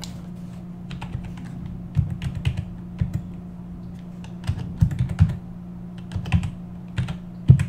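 Typing on a computer keyboard: short, irregular runs of keystrokes as a barcode is entered, over a steady low hum.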